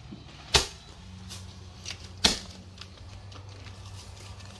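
Handheld firework shooting off sharp pops: two loud bangs about a second and a half apart, with fainter pops between and after them. A low steady hum runs underneath.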